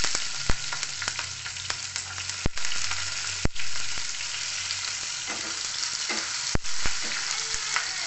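Garlic and ginger frying in hot oil with cumin seeds and chillies in a kadhai: a steady sizzle with sharp crackles every second or so.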